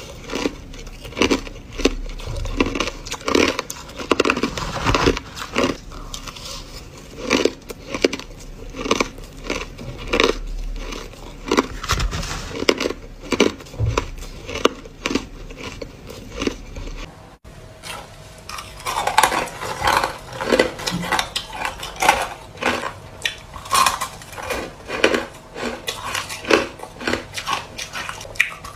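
Close-up crunching of purple crushed ice being bitten and chewed, many rapid irregular crunches. About two-thirds of the way through it breaks off briefly, and crisper crunching of chunks of refrozen ice follows.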